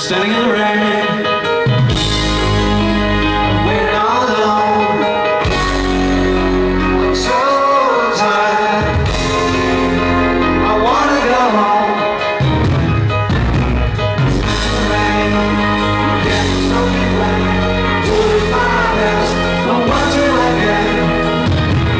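Live rock band playing, with a male voice singing over electric bass guitar, keyboards and violin. The full band with heavy bass comes in about two seconds in, after a lighter keyboard opening.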